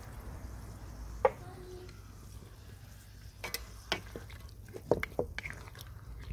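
A sharp knock about a second in, then a wooden spatula stirring a watery tomato-onion masala in a steel karahi, with a few scattered knocks and scrapes of wood against the pan in the second half.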